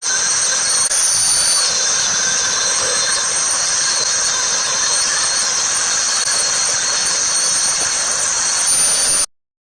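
High-speed router spindle running steadily with a high-pitched whine over a hiss, cutting off abruptly near the end.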